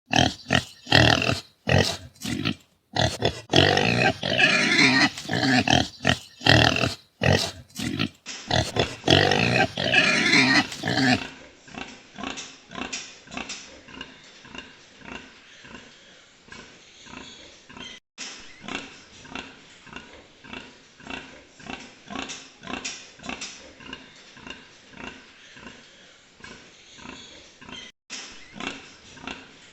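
Pigs: loud, shrill squealing for about the first ten seconds, in several cut segments. Then a sow's quieter run of short, rhythmic grunts, about three a second.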